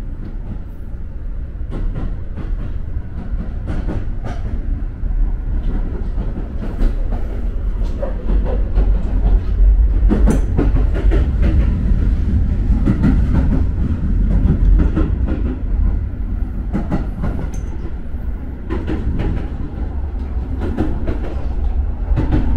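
Keio Line electric commuter train running along the track, heard from inside the carriage: a steady heavy low rumble with irregular clicks and clacks of the wheels over the rails. It grows louder about ten seconds in.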